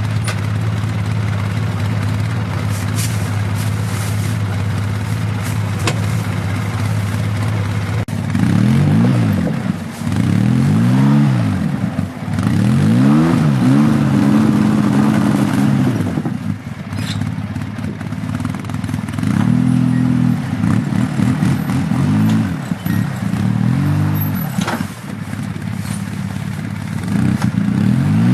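Vehicle engine towing a heavily loaded trailer of green lumber. It runs steadily, then from about eight seconds in revs up and drops back again and again.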